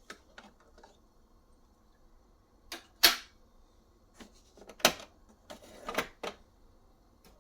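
Mechanical clicks and clunks from the Aiwa AD-1250 cassette deck's controls being operated. There are a few light clicks in the first second, then heavier clunks about three seconds in and again around five and six seconds.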